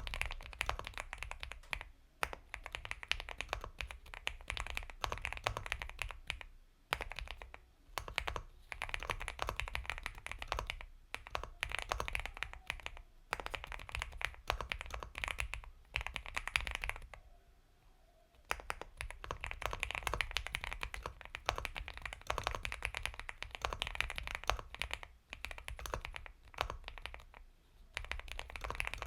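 Continuous fast typing on an Epomaker x Feker Galaxy 80 mechanical keyboard with Gateron Milky Yellow Pro linear switches: dense, soft keystroke clicks in bursts, with brief pauses between them and a longer pause about two thirds of the way through.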